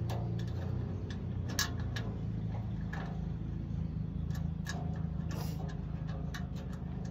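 Scattered light clicks and taps of sheet-steel BBQ pit parts being handled and fitted together, irregularly spaced, over a steady low hum.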